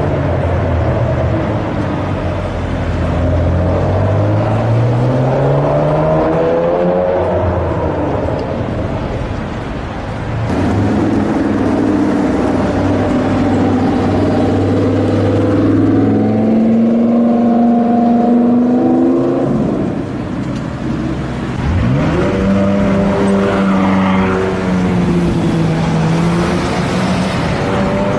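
Supercar engines accelerating through the gears in a run of short clips, each a loud engine note that climbs in pitch. The middle clip is a Lamborghini Huracán's V10, running steadily at first and then revving up.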